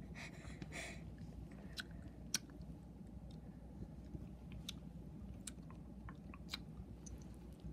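Faint mouth sounds of eating close to the microphone: chewing, sucking and lip smacks, with scattered small sharp clicks.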